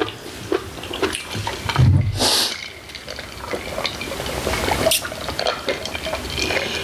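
Close-miked eating sounds: wet chewing and slurping of bulgogi hotpot with its broth, many small sticky clicks, and a brief louder slurp a little over two seconds in.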